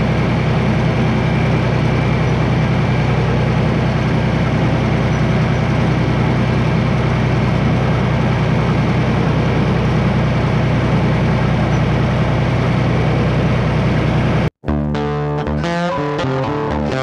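John Deere 1020 three-cylinder diesel tractor engine running steadily at working speed. Near the end it cuts off abruptly and guitar music starts.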